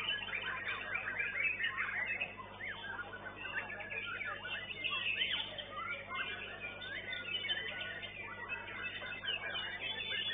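White-rumped shama (murai batu) singing a continuous run of rapid whistled phrases, with quick rising and falling notes, as in a songbird contest round.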